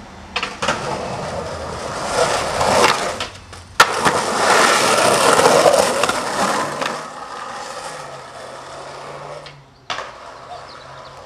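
Skateboard wheels rolling over rough concrete and asphalt, with several sharp clacks of the board striking the ground. The loudest clack comes about four seconds in.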